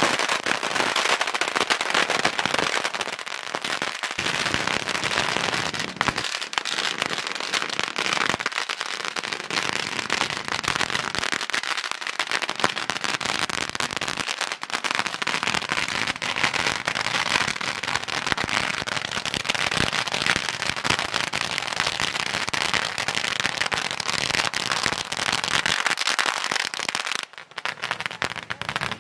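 Long strings of firecrackers going off continuously around the burning king boat: a dense, rapid crackle of many small bangs, with a short lull near the end.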